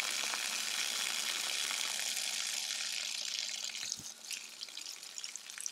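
Water gushing out of an RV water heater tank's drain opening in a steady stream, the tank being drained for winterizing. The flow is strongest at first and eases off about four seconds in.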